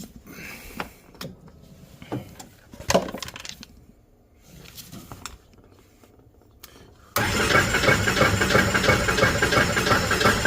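Starter cranking the Polaris RZR 800's twin-cylinder engine, which does not catch: a no-start. The cranking starts abruptly about seven seconds in and runs about four seconds, after a few scattered clicks and knocks.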